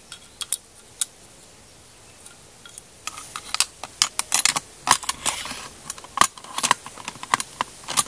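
Steel parts of a PKM machine gun's bolt group clicking and clacking as the bolt is seated in the bolt carrier and the carrier with its gas piston is slid into the receiver. A few single clicks in the first second, then a quick run of clicks and scrapes from about three seconds in.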